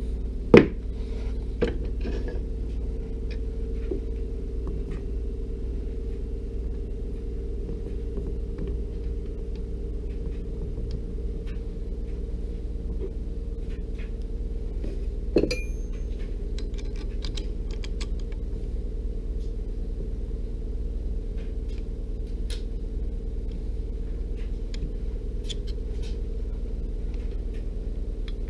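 Scattered metal clicks and knocks of a four-jaw lathe chuck being handled and a square wood blank being set into its jaws, the sharpest knock about half a second in and another about halfway through. Under them runs a steady low hum.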